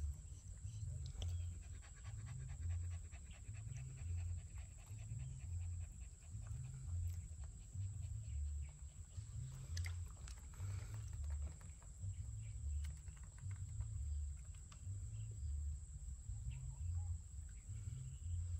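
Puppy breathing heavily in a slow, steady in-and-out rhythm, low-pitched and close up.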